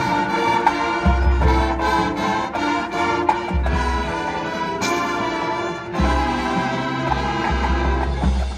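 High school marching band playing: brass sustaining chords over the front ensemble's mallet percussion, with deep low notes coming in at intervals.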